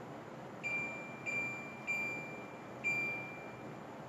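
LG inverter split air conditioner's indoor unit beeping four times in quick succession, one short high beep that fades for each remote command received, as its setting is changed. A steady hiss runs underneath.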